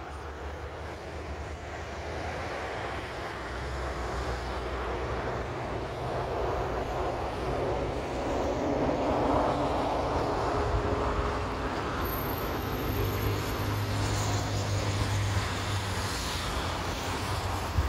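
Boeing 737 MAX 8 airliner on approach, its jet engines making a broad rushing rumble that grows louder over the first half as the plane nears, then holds steady.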